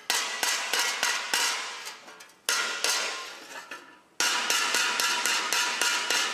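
A hammer striking a rusty steel bar on a small anvil: a quick run of metal-on-metal blows with a bright ring after each. The blows come in three runs, starting again about two and a half and four seconds in, each opening with its loudest blow and then weakening.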